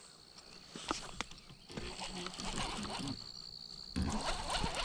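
Clicks and rustling from hands handling a baitcasting reel close to the microphone, louder from about four seconds in, over a steady high-pitched whine.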